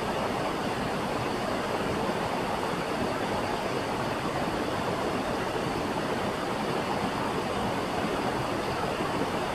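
Creek waterfall rushing steadily.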